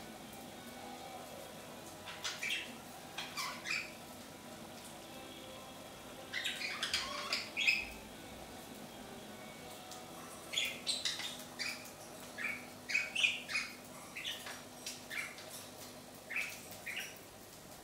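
Budgerigars chirping and chattering: short, high calls in clusters, a few about two seconds in, a dense group around seven seconds, and a long run of calls from about ten seconds on.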